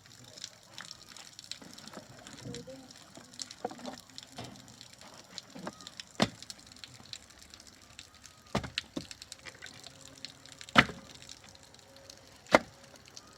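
Irregular sharp knocks and clicks over a low background, with four louder knocks spread through the second half.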